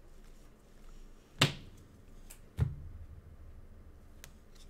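Two sharp knocks about a second apart, the second a duller thud: trading cards and packs being handled and set down on a table.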